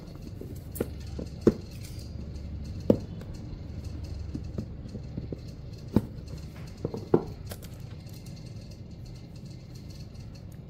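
Hands handling and opening a cardboard tablet box: a handful of sharp knocks and smaller taps of cardboard as the box is turned over and its lid lifted off. A low steady rumble runs underneath.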